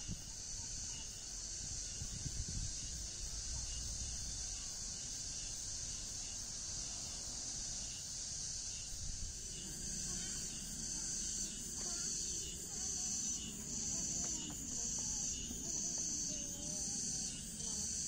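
Steady high-pitched insect chorus, pulsing a little in the last few seconds, over a low outdoor rumble.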